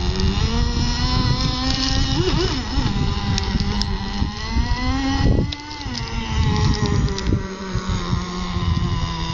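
Nitro engine of a CEN Racing Gray Thunder GP radio-controlled boat running on the water, its pitch rising and wavering with the throttle. About five seconds in the pitch drops off sharply, then the engine runs on lower and steadier.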